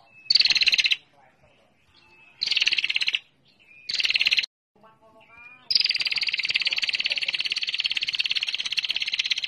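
Female prinia (prenjak) giving its rapid, high ticking 'ngetir' call, the lure call used to stir males into calling. Three short bursts of fast ticks come about a second apart, then from about six seconds in one long unbroken run of ticks, with a few faint lower wavering notes in the gaps.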